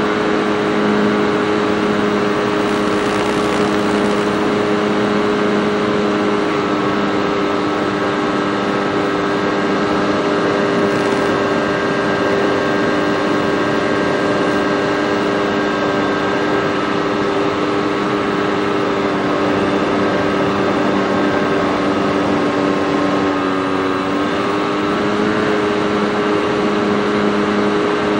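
Senorita model airplane's motor and propeller running steadily at a constant pitch in flight, heard from the onboard FPV camera. About 23 seconds in the pitch sags briefly, then comes back up.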